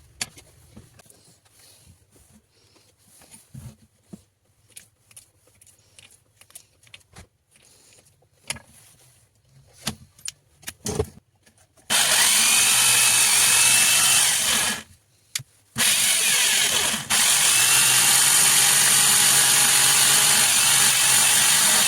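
A 2-20 mm rotary hammer drill being test-run after a piston repair. Scattered light clicks and knocks come first as it is handled. About twelve seconds in, it runs at a steady full speed for about three seconds, stops briefly, and then runs again until the end.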